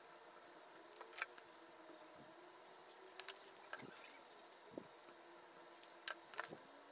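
Near silence broken by a few short, faint taps and scratches of a felt-tip highlighter marking small dabs on paper, some in quick pairs.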